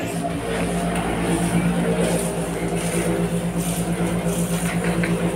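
Water running at a kitchen sink tap under a steady, slightly pulsing motor hum.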